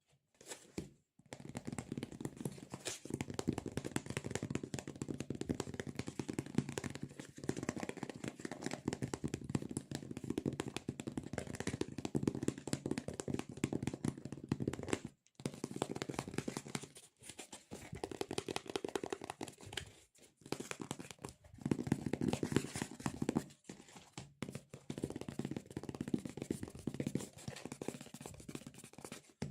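Close-miked ASMR hand sounds: fingers tapping and peeling on a sticky surface, a dense run of fast crackling clicks that pauses briefly a few times.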